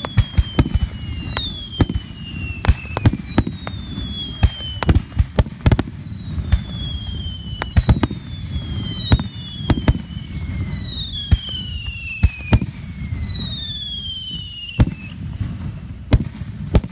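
Aerial fireworks display: a rapid, irregular string of sharp bangs from bursting shells, with several high whistles overlapping them that each glide slowly down in pitch over a second or two.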